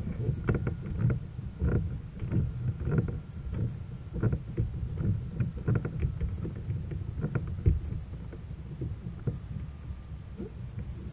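Irregular knocks and thumps on a plastic fishing kayak's hull, about two or three a second over a low rumble, thinning out in the last few seconds, as the angler handles his rod and reel.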